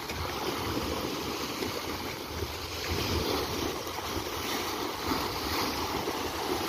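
Small sea waves breaking and washing over a rocky shore ledge in a steady rush, with wind buffeting the microphone in an uneven low rumble.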